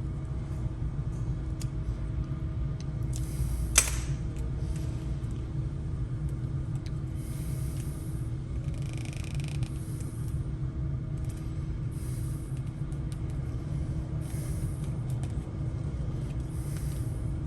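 Steady low rumble with a faint steady hum, a single sharp click about four seconds in, and soft swishing rubs every couple of seconds from about seven seconds on as vinyl wrap film is worked by hand.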